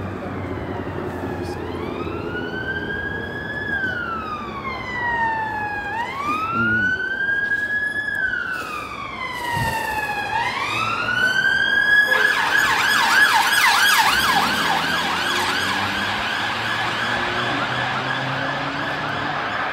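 Emergency vehicle siren on a city street, wailing slowly up and down about every four seconds, then switching about twelve seconds in to a rapid yelp, at its loudest just after the switch.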